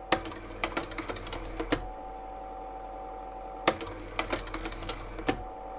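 Mechanical sound effect: two runs of rapid, irregular clicking, like a typewriter or ratcheting machine, over a steady electric hum with a held tone.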